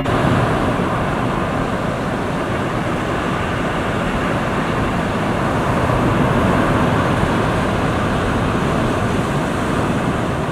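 Steady wash of small surf breaking on the shore, with wind buffeting the microphone.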